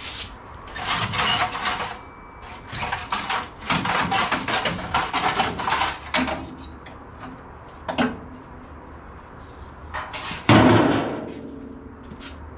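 Clanks and scraping of a steel replacement floor pan being shifted and lined up on a car body, in two bouts of rapid knocks, with a single knock about eight seconds in and a loud metallic bang about ten seconds in that rings on briefly.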